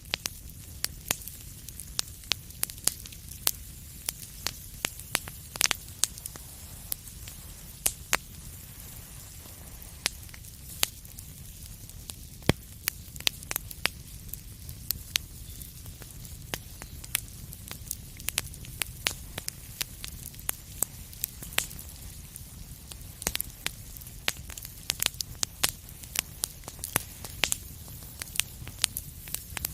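Wood fire crackling: irregular sharp pops and snaps, several a second, over a steady low rumble of burning.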